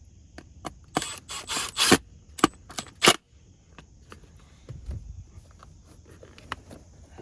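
Hands working plastic interior parts in a car: a quick run of sharp clicks and knocks about a second in, ending in three louder snaps, then a few scattered lighter taps.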